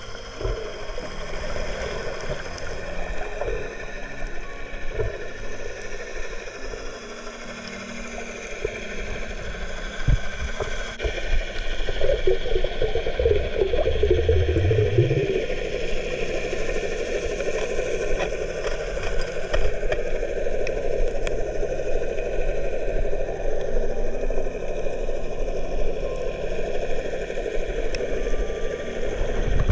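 Underwater sound heard through a camera's waterproof housing: a steady rush and low rumble of water with scattered clicks and rattles, and a brief rising low hum about fourteen seconds in.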